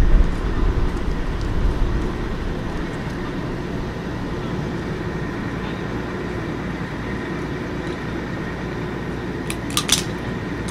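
Steady low rumble of vehicle engines idling, with a faint steady whine over it. It is heavier and more uneven for the first couple of seconds, and a quick cluster of sharp clicks comes near the end.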